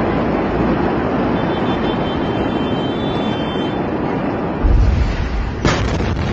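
A steady rumbling noise, then about four and a half seconds in the deep boom of the 2020 Beirut port ammonium nitrate explosion arrives. About a second later comes a sharp crack as the blast wave strikes at the camera.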